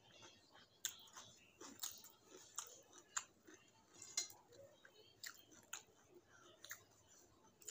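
A person chewing a mouthful of rice and fish curry eaten by hand, with sharp wet mouth clicks and smacks about once a second.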